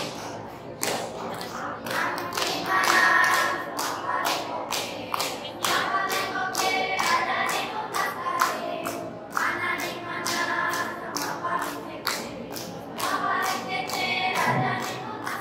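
Girls' nasyid group singing an Islamic devotional song together, over a quick, steady beat of sharp percussive hits.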